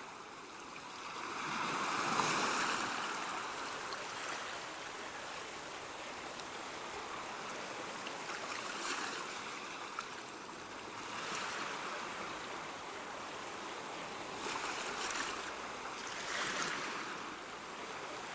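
Ocean waves washing ashore in a steady surf, with a louder breaking wash about two seconds in and several smaller swells later on.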